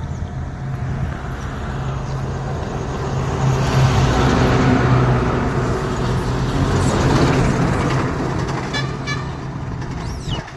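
A motor vehicle's engine running, with road noise that swells to a peak midway and then eases off, as of traffic passing close by.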